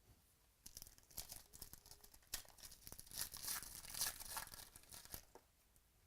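Plastic or foil trading-card packaging crinkling and tearing in a run of rustling that builds to its loudest in the middle and stops a little after five seconds in.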